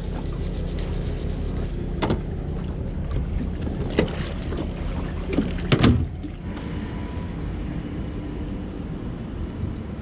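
Small boat under way: a steady motor drone with water and wind noise. A few sharp knocks come about 2, 4 and 6 seconds in, the last the loudest.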